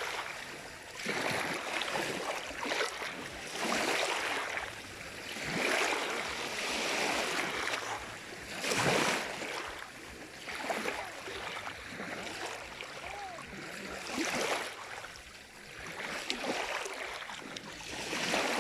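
Sea waves washing in and breaking on the shore, surging and falling back every two to three seconds.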